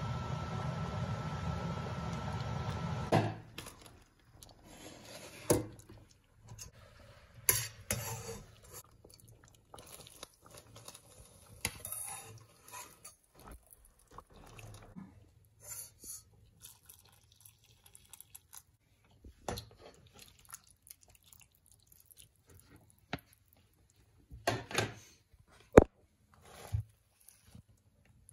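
A pot of meat and broth boiling for about three seconds, a steady noise that stops suddenly. Then scattered clinks and knocks of utensils against the cooking pot, with a cluster of sharp knocks near the end.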